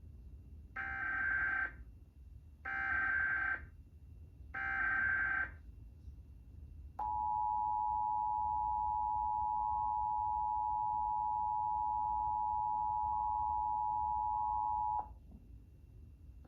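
Emergency Alert System test tones. Three roughly one-second bursts of SAME header data screech come first, then the two-tone EAS attention signal (853 and 960 Hz) holds steady for about eight seconds and cuts off sharply.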